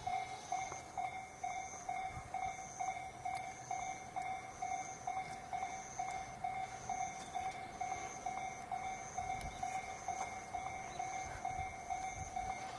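Japanese level-crossing alarm ringing steadily, a repeating electronic ding at about two strikes a second, signalling that a train is approaching.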